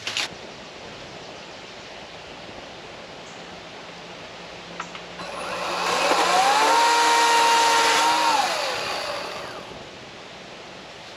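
A power saw's motor spinning up, running at a steady pitch for about two seconds, then winding down.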